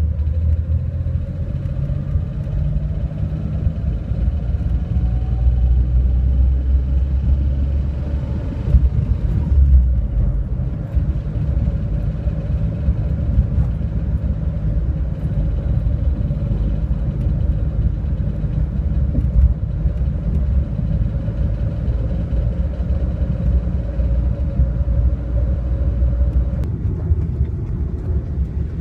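1995 Pontiac Firefly's 1.0-litre G10 three-cylinder engine running with a steady low rumble, recorded to catch a knocking noise whose cause the owner does not know. A faint steady tone in the mix stops near the end.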